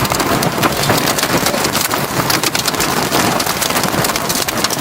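Boeing 737 jet engines at takeoff thrust heard at close range: a loud, steady rushing noise full of dense crackle.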